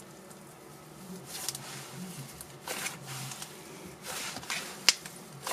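Icy slime being squeezed and kneaded by hand, giving soft crackly squishing sounds a few times, with one sharp pop near the end.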